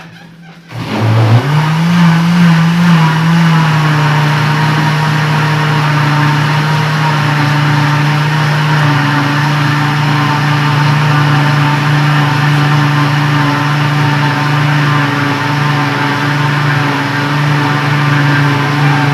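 Kitchen blender switched on about a second in, its motor spinning up and then running steadily as it blends a flour batter, switched off at the end.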